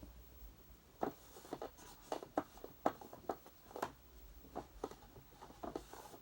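Irregular light clicks and knocks of an upright vacuum cleaner's parts being handled and fitted together by hand, about fifteen in all.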